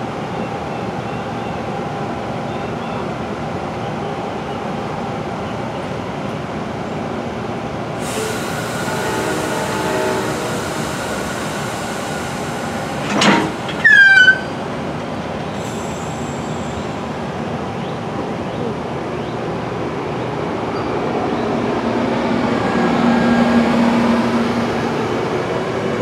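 Virginia Railway Express bilevel commuter train at the platform: a steady train rumble, a hiss that starts about a third of the way in, and a very loud short squeal falling in pitch just past the middle. Near the end the rumble swells with engine and wheel noise as the train starts to move.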